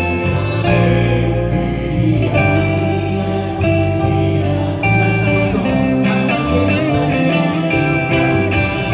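Live worship band playing a praise song: a Stratocaster-style electric guitar plays over keyboard, bass guitar and drums.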